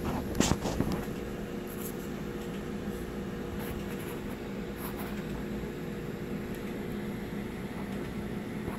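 Steady room hum with a few light clicks and scratches in the first second and faint ticks later, as a hamster climbs about the wooden drawers of a jewelry box.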